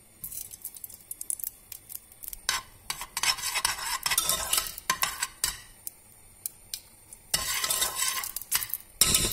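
A spoon scraping and stirring in a metal pressure cooker on the stove as ghee heats and sizzles. It comes in three bouts of a second or more, with short pauses between.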